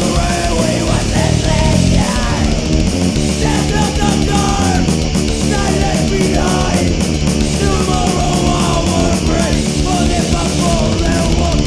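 Heavy metal band recording playing loud and dense, with distorted guitars, bass and drums.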